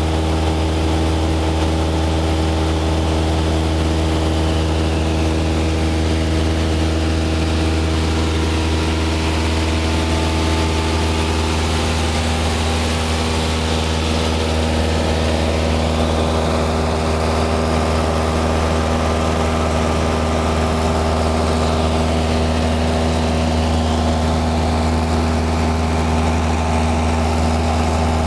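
Single-engine high-wing light aircraft's piston engine and propeller heard from inside the cabin: a loud, steady drone, its note shifting slightly a little before halfway through.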